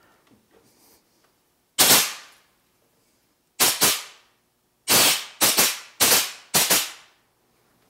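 Pneumatic rivet gun made from a converted welding chipper, run free in short bursts by a foot valve. There are about seven rattling bursts, each under a second: one about two seconds in, then a pair, then four in quick succession near the end.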